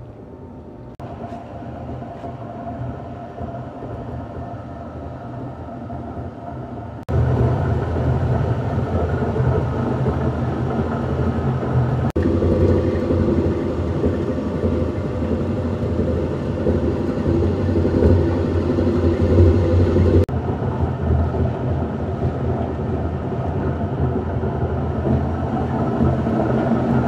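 Plastic-scrap recycling machine with a spinning drum running with a steady motor hum. The level jumps abruptly several times, loudest from about seven seconds in.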